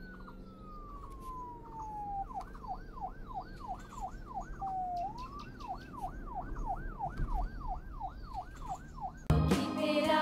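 Electronic siren: a single tone that slides slowly down, then switches to a fast up-and-down yelp about three times a second, with one brief slow dip in the middle. Loud music cuts in near the end.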